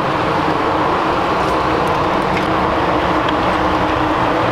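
Steady, loud engine-like running noise, with a few faint clicks.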